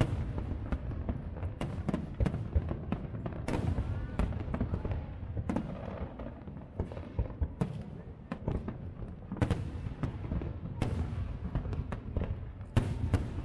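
Aerial firework shells bursting in irregular succession: many sharp bangs, a few much louder than the rest, over a continuous low rumble from the display.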